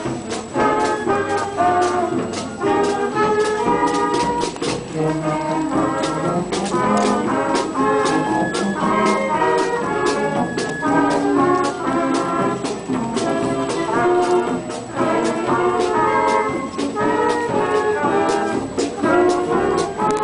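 School marching band playing as it marches: trumpets, saxophones and other horns carry the tune over a steady bass drum beat.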